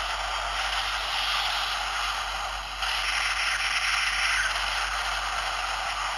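Hissing, crackling noise sound effect played through a DX Ultraman Trigger toy's small speaker. It has no bass, gets a little louder about three seconds in, and tails off near the end.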